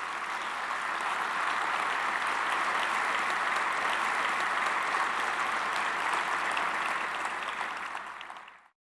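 Audience applauding: dense, steady clapping that eases slightly near the end and then cuts off abruptly.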